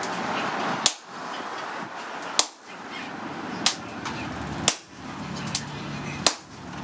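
Blacksmith's hammer striking steel on an anvil, forging tongs: five sharp blows and one lighter tap, roughly one every second or so, over a steady background noise.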